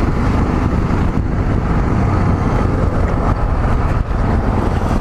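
Steady wind buffeting on the microphone of a motorcycle on the move, with the Yamaha XT660Z Ténéré's single-cylinder engine running underneath at a constant pace.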